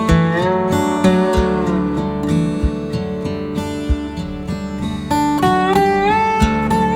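Background music: a guitar melody with notes that slide from one pitch to the next, over a steady low accompaniment.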